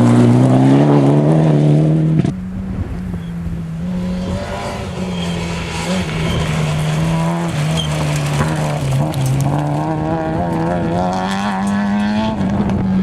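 Rally car engines at high revs. First one car accelerates hard with a climbing note, then from about two seconds in another engine is held at fairly steady high revs, its pitch wavering up and down.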